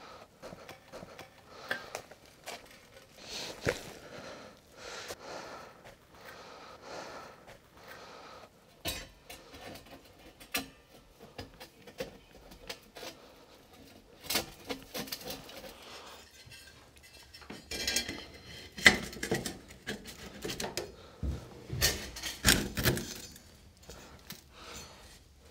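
Stainless-steel stove flue pipe sections clinking and clanking as they are handled and fitted together, with scattered light taps at first and a run of louder metallic knocks in the second half.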